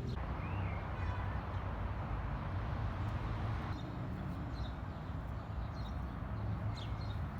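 Outdoor city ambience: a steady hum of traffic with a low rumble, and a few short high bird chirps now and then.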